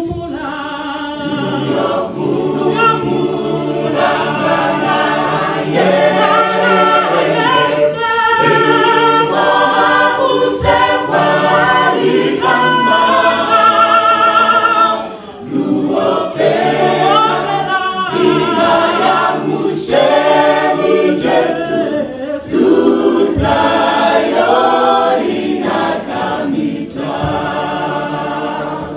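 Gospel choir singing a cappella in harmony, with a woman's lead voice on a microphone over the group. The singing dips briefly about halfway through, then carries on.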